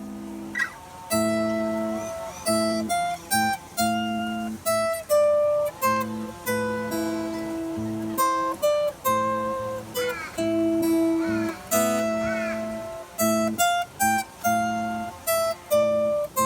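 Solo acoustic guitar playing a slow instrumental piece: single plucked melody notes moving up and down over repeated lower bass notes, with no singing.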